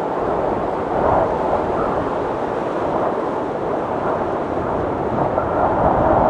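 Wind storm: strong steady wind with gusts swelling about a second in and again near the end, and a faint whistle in the gusts.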